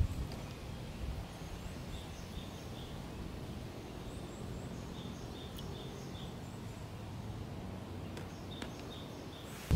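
A songbird calling in short runs of three or four high chirps, three times, over a low outdoor rumble of wind and leaves.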